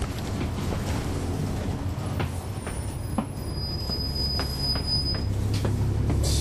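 Inside the rear of a NABI 40-foot transit bus: its Cummins ISL9 diesel running low as the bus slows, with a steady high brake squeal for about two seconds midway and scattered rattles and clicks from the body. The engine sound grows again near the end.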